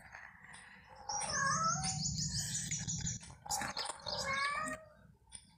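A small kitten mewing in short calls, with a rapid high chirping trill from a bird that starts about a second in and lasts about two seconds.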